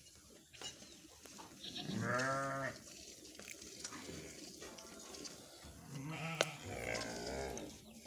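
Two drawn-out calls from a farm animal, the first about two seconds in and a longer one a little past the middle.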